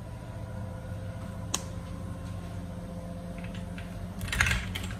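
Plastic spice jars being handled: a single sharp click about a second and a half in, like a flip-top cap snapping, then a short clatter of jars knocking together near the end. A steady low hum runs underneath.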